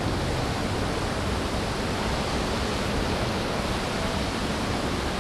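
Steady rush of fast, shallow creek water running over rocks.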